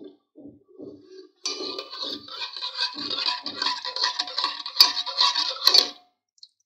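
Steel ladle stirring milk and soaked basil seeds in a steel pot: the ladle scrapes and clinks against the metal as the liquid swishes. A few soft taps come first, then steady stirring from about a second and a half in until it stops near the end, with two sharper clinks just before it stops.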